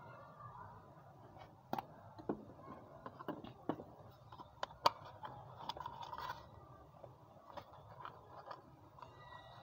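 Small scissors snipping and crunching through the thin red plastic of a Harpic toilet-cleaner bottle: a run of sharp, irregular clicks, the loudest about five seconds in. Near the end the cut plastic pieces are handled, with a few softer clicks.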